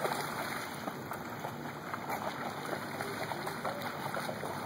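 Water splashing and sloshing as a chocolate Labrador retriever bounds and wades through shallow flood water.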